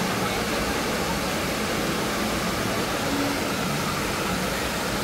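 Water park ambience: a steady rushing noise with faint, distant voices now and then.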